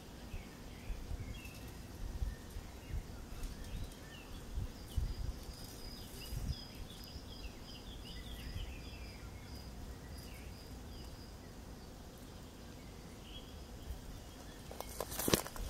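Outdoor woodland ambience: small birds chirping in a quick series of short notes and a thin, steady high note held for several seconds. Low wind rumble on the microphone runs under it, and a brief loud crackle comes near the end.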